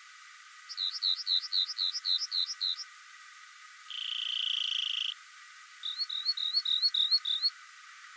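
Rock wren singing: a phrase of about ten quick, clear notes repeated at roughly five a second, then a buzzy trill lasting about a second, then a new phrase of repeated notes.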